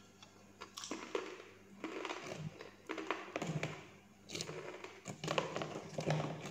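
Crisp fried spinach chips crunching as they are bitten and chewed, in an irregular run of crackly bites. Near the end comes a dry crackle as another large chip is lifted out of a plastic tub.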